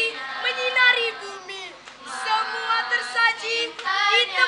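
Young girls' voices singing a scout team cheer song (yel-yel), with a short lull just before halfway.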